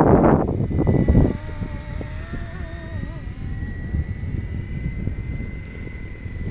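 A 470-size scale BO 105 radio-controlled helicopter flying, with a steady high whine and a fainter tone that wavers in pitch. Strong wind buffets the microphone with loud rumbling gusts in the first second and again at the end.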